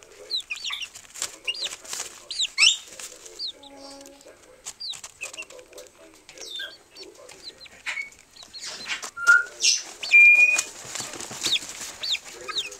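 A small group of chickens making many short high cheeps and soft low clucks, with scratching and rustling in their feed as they dust-bathe.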